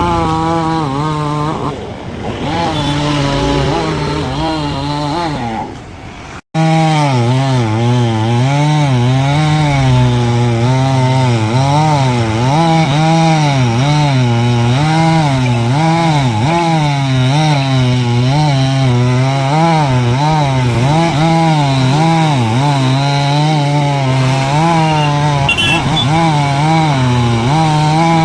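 Chainsaw running and cutting wood, its pitch dipping and rising again and again as it loads up in the cut. The sound drops out for an instant about six and a half seconds in.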